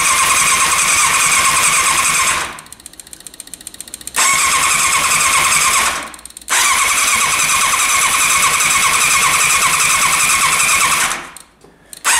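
Electric starter cranking a four-cylinder motorcycle engine in three long bursts with short breaks between them, the engine not catching. A fast, light ticking is heard in the first break.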